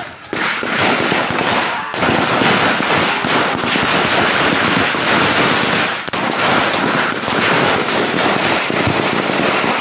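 Heavy gunfire: many rapid shots overlapping into a dense, continuous crackle, with only brief lulls.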